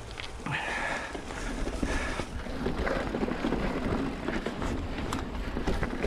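Mountain bike riding down a dirt trail: steady wind rumble on the microphone and tyre noise, with two brief high squeals in the first two seconds and scattered clicks and rattles from the bike later on.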